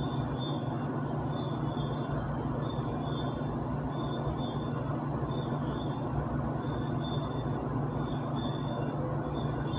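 A steady low rumbling drone with faint high-pitched squeaks recurring roughly once or twice a second, like machinery in motion.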